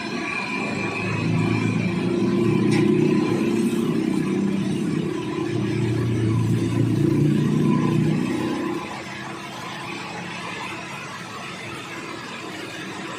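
A concrete mixer's small engine running. It is louder for about eight seconds, then drops back to a quieter steady run near the end.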